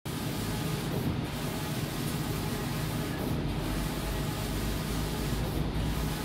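Large-format inkjet printer running, its print-head carriage sweeping back and forth across the wallpaper: a steady whirring hum with hiss, which dips briefly about every two seconds as the carriage turns at each end of its pass.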